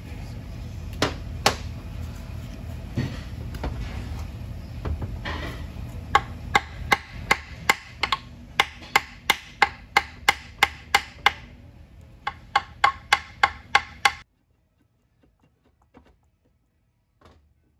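A hammer tapping on an automatic transmission's metal case to loosen a part for removal: a couple of single strikes, then a steady run of taps at about two and a half a second, a short pause and a few more. The sound cuts off suddenly about 14 seconds in.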